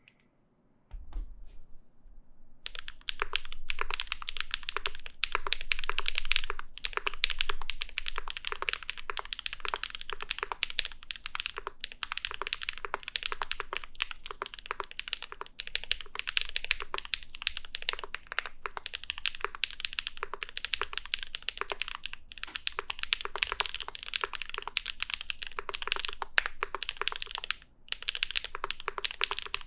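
Mechanical keyboard fitted with Zaku linear switches, which have long-pole stems, being typed on. A few single keystrokes come about a second in, then fast continuous typing with one brief pause near the end.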